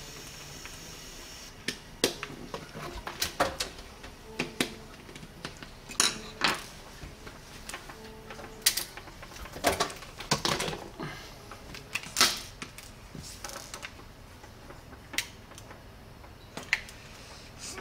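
Irregular clicks and knocks from a professional hair-straightening flat iron's plastic and metal housing as it is handled, opened and set against a tabletop while being taken apart.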